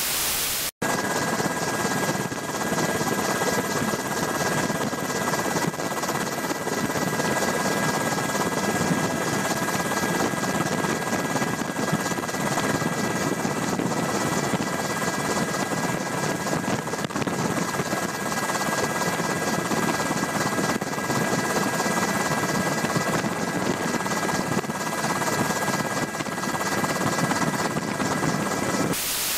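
A steady mechanical drone with a faint high whine in it, unchanging in level and pitch, after a brief different sound cut off just under a second in.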